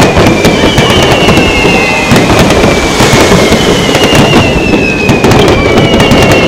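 Fireworks display: a rapid barrage of shells launching and bursting, with dense crackling and several long whistles falling slowly in pitch, one after another.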